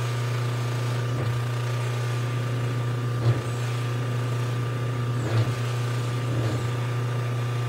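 Electric bench buffer running with a steady low hum while a forged aluminium piston crown is pressed against its spinning white polishing wheel. The sound swells briefly a few times.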